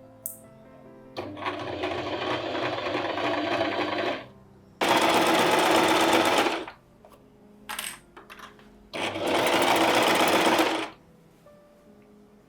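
A small electric motor appliance running in three bursts of a few seconds each, with a fast, even rattle.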